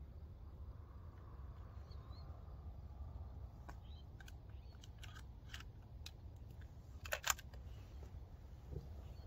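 Shotgun being handled: a scatter of light clicks, then a quick cluster of sharper clicks about seven seconds in, over a low steady rumble.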